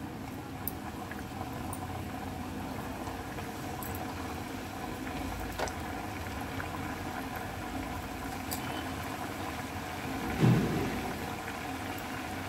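Thekua dough pieces deep-frying in hot oil in a kadhai: a steady sizzle and bubbling, with a few faint clicks and a brief low thud about ten seconds in.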